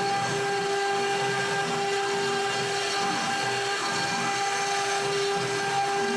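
CNC router spindle running at speed while a V-bit carves into plywood: a steady whine over the noise of the cut.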